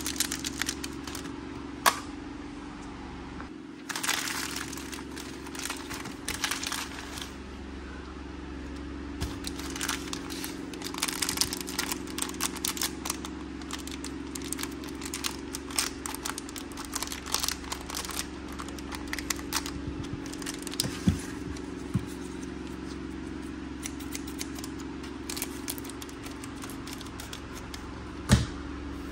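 Crinkling and rustling of thin foil and tissue-paper wrappers being peeled open by hand, with a few sharper clicks and taps.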